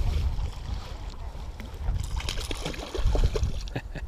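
Small northern pike splashing at the surface as it is reeled in on a lure, with several short splashes in the second half, over a low rumble.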